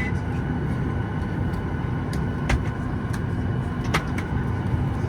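Steady rumble and hiss of a parked airliner's cabin air system with the main engines not yet started. A couple of sharp clicks come from the cabin, about two and a half and four seconds in.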